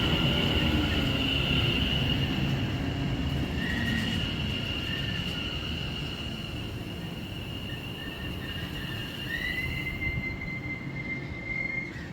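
A train running through the station, its rumble slowly fading, with a steady high whine over it. About nine seconds in, a second high tone rises in pitch and holds.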